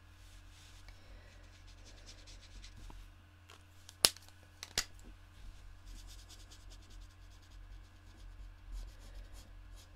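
Faint rubbing and scratching of an alcohol-marker nib on card stock as a stamped image is coloured in. About four seconds in come two sharp clicks, just under a second apart.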